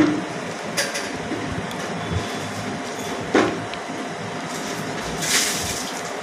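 Curd squeezed from a plastic pouch into a steel bowl: a few short crinkles and knocks, about a second in and again at three and a half seconds, and a longer rustle near the end, over a steady background hum.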